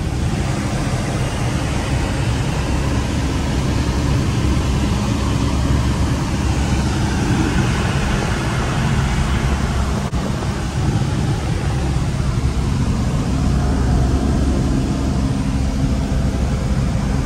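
Small piston-engine aircraft's engine running steadily, a constant low drone with a broad rushing noise over it, heard from inside the cockpit.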